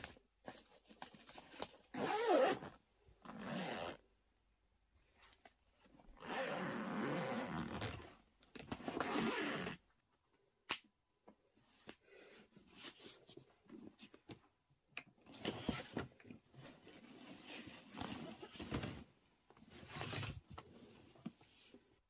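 Zippers on a hard-shell suitcase being run, with two long zips in the first half, followed by a sharp click and a run of soft fabric rustles and handling noises as clothes and cross straps are packed.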